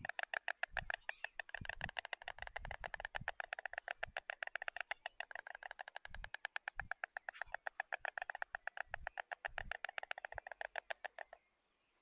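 White storks bill-clattering: a long, rapid, even rattle of the mandibles snapping together, which stops abruptly near the end. This is the pair's greeting display at the nest. Scattered low thuds sound underneath.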